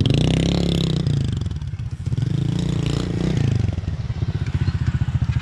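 Small motorcycle engine revved twice, each rev rising and falling in pitch, then settling back to a steady, fast-pulsing idle.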